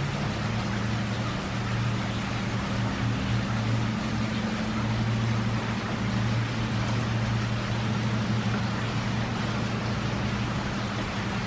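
Steady rain falling into standing water on a lawn, an even hiss, over a constant low mechanical hum.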